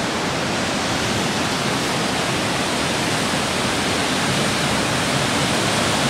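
Smoo Cave's waterfall, a burn plunging into the limestone cave: a steady rush of falling water.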